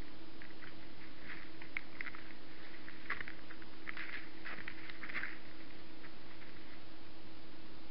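Short, irregular rustling and crunching from whitetail deer moving and nosing about in dry grass and crusted snow, busiest in the first five seconds. A steady low hum and hiss from the trail camera runs underneath.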